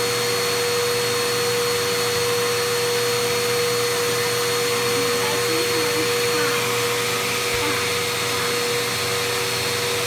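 Vacuum cleaner running steadily through its hose attachment, a constant rush of air with a steady hum and a thin high whine.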